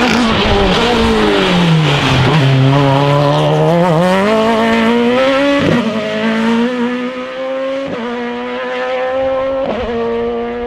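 Citroën C2 rally car's engine at high revs. First the pitch falls as the car slows, then it climbs as the car accelerates. Halfway through and twice more near the end the climbing note breaks briefly at gear changes as it pulls away.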